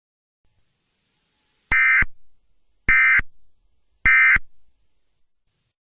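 Emergency Alert System end-of-message code: three short, loud bursts of SAME digital data tones, about a second apart, which mark the end of the alert.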